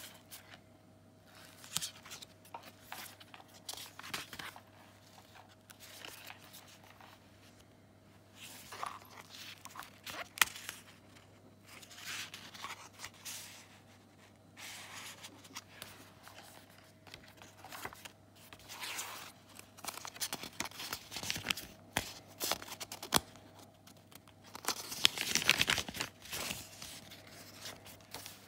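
Paper pages and card tags of a handmade junk journal being handled and turned: scattered rustling, crinkling and light taps, with the longest and loudest rustle near the end.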